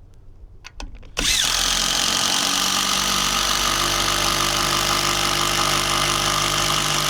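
A motor-driven power tool or small engine switches on suddenly about a second in, after a few light clicks, and then runs loud and steady.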